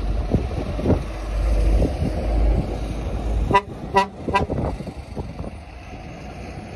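Vehicle horn sounding three short toots in quick succession a little past halfway, over a low rumble in the first half.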